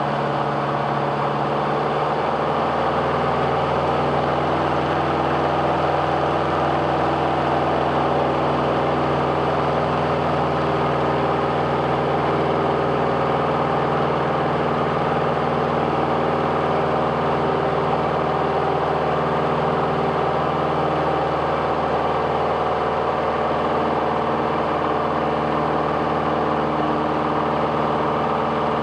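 An engine running steadily at constant speed, a continuous drone with a fixed pitch.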